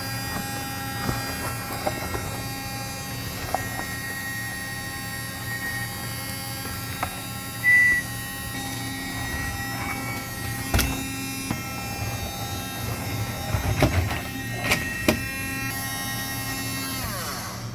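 Henry desktop mini vacuum cleaner's small motor running steadily with a whine, with sharp clicks and rattles as small cable pieces are sucked up. Near the end it is switched off and the motor winds down in a falling whine.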